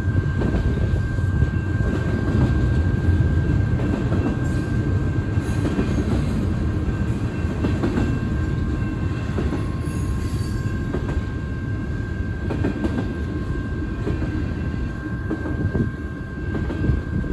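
Double-stack container freight train rolling past at steady speed: a continuous rumble of steel wheels on rail with occasional clicks, over a thin steady high ringing from the wheels.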